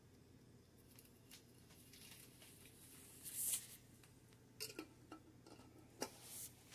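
Faint kitchen sounds as thick chunky sauce is emptied from an upside-down glass jar onto spaghetti in a skillet: two short soft squelching swishes and a few light clicks.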